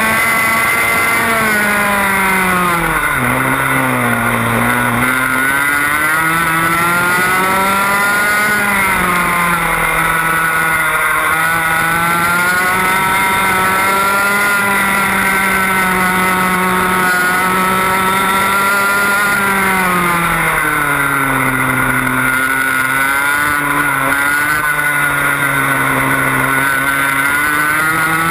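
Onboard sound of a TAG Restricted kart's 125cc two-stroke engine racing. The revs fall into a corner a few seconds in, climb back and hold high along a straight, dip again for another corner about twenty seconds in, then climb near the end.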